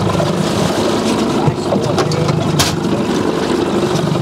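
Boat's outboard motor running steadily, with two sharp knocks about a second and a half and two and a half seconds in.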